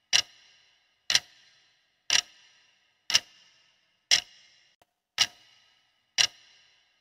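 Countdown clock ticking steadily, one sharp tick a second with a short metallic ring after each, seven ticks in all, timing the answer period.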